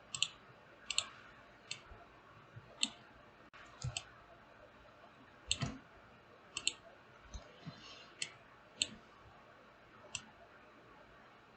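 Computer mouse clicking, about a dozen sharp clicks at uneven intervals, several of them quick double clicks.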